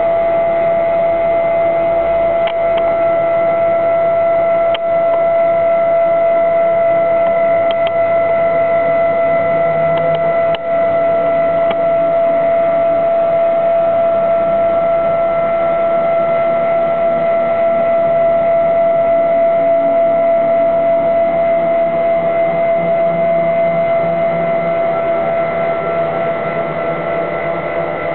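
CNC gantry milling machine's axes traversing on large stepper motors (12.5 Nm, M542 drivers): a steady high whine at one pitch with higher overtones, with a few faint clicks.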